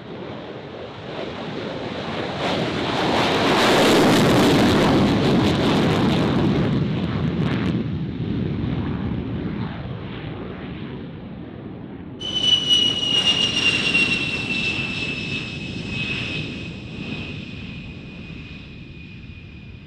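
F-16 taking off, its jet engine noise swelling to a peak about four seconds in and fading as it climbs away. About twelve seconds in, the high whine of an A-10 Thunderbolt II's TF34 turbofans starts abruptly and slowly drops in pitch.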